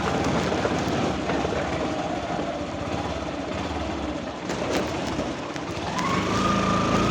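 A motor vehicle's engine running, with steady road or traffic noise. About six seconds in, a steady high tone begins and holds.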